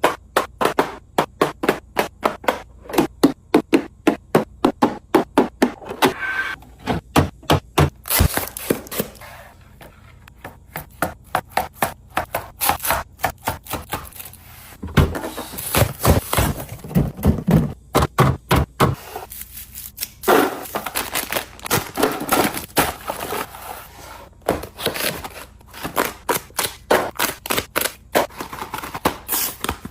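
Food containers and packaging being handled and set down while restocking a fridge: rapid clacks and knocks of plastic and glass, with scraping and rustling in between.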